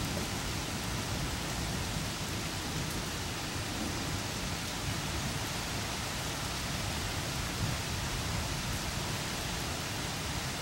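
Steady rain falling on trees, grass and roofs during a thunderstorm, with distant thunder rumbling low underneath.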